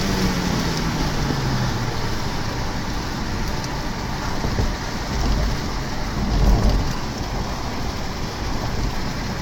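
Audi's engine note falling in pitch and fading during the first second or so, giving way to a steady rushing noise with two swells of low rumble around the middle.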